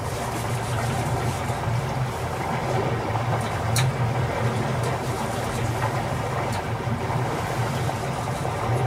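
Motorboat engine running steadily as the boat creeps slowly through shallow water, a low even drone heard from on board.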